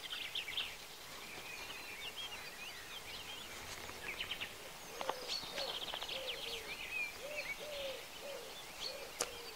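Woodland birdsong: many small birds chirping and trilling, joined from about halfway through by a low hooting call repeated about twice a second. Two sharp clicks stand out, one near the middle and one near the end.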